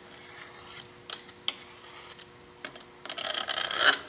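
Eagle thumb-pump oil can clicking as it squirts oil onto the lathe carriage ways: a few separate clicks, then a quick run of clicks near the end.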